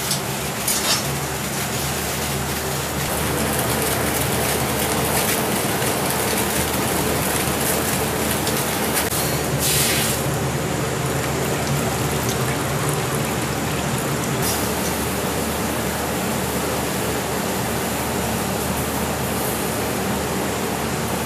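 Steady rushing noise with a faint low hum, with a few light clicks near the start.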